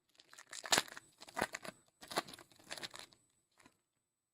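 Foil trading-card pack wrapper being torn open and crinkled, in a series of rustling rips with sharp crackles over about three seconds.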